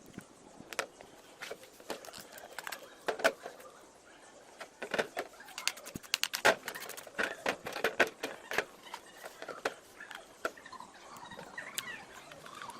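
Irregular clicks, taps and light rattles of small hard parts of a hair clipper being handled and worked on, busiest around the middle.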